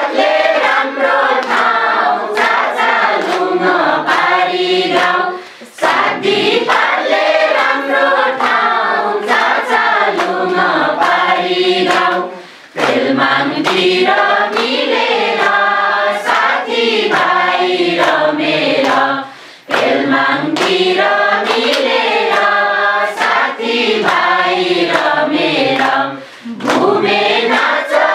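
A group of adults, mostly women, singing a Nepali children's song together while clapping in time. The singing breaks briefly between lines about every seven seconds.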